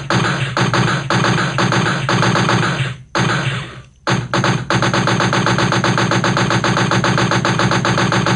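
Automatic gunfire sound effect: a long burst of rapid, evenly spaced shots that dies away about three seconds in, then after a short gap a second long rapid burst.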